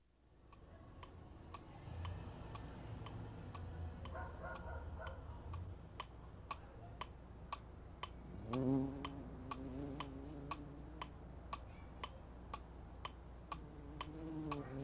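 Wall clock ticking steadily, about twice a second. A fly buzzes over it, loudest about halfway through and again near the end.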